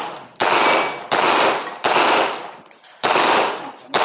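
Rapid pistol fire from a handgun with a red-dot sight: five shots, roughly 0.7 s apart with a slightly longer pause before the fourth, each fading off quickly.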